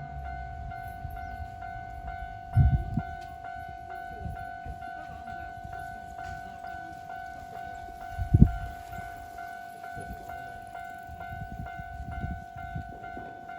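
Japanese railway crossing alarm ringing its steady two-tone electronic 'kan-kan' bell at about three strikes a second. Two loud low thumps come about three seconds in and again about six seconds later, over a low rumble.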